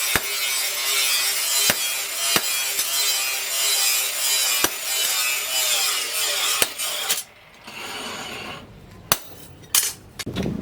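Steady rasping of a tool working steel, with sharp clicks every second or so. It stops suddenly about seven seconds in, and a few separate light knocks follow.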